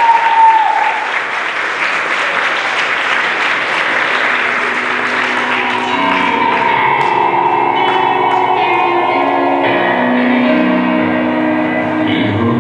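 Guests clapping and cheering, with a whoop right at the start. The applause fades over several seconds as music comes in about six seconds in and carries on.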